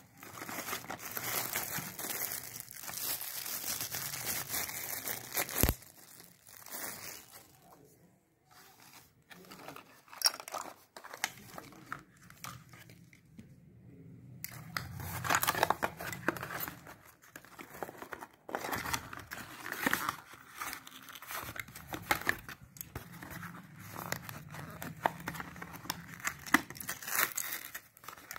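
Cardboard packaging and plastic wrap rustling and crinkling as a hair trimmer and its accessories are unpacked by hand, with one sharp knock a few seconds in and a quieter lull in the middle.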